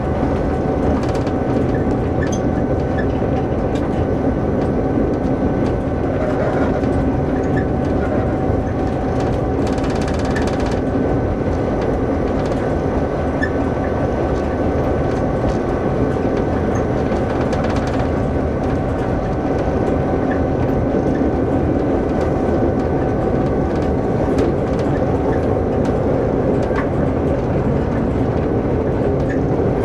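DSB class MY diesel-electric locomotive, with its GM two-stroke V16 engine, running at a steady drone with a steady whine as it rolls slowly along the line. A short hiss comes about ten seconds in.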